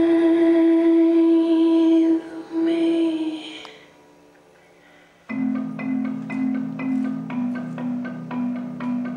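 Dance music for a tribal-fusion belly dance: a long held drone-like tone fades out over a couple of seconds, and after a short lull new music starts about five seconds in, with bright mallet-like struck notes repeating about three times a second over a held low bass.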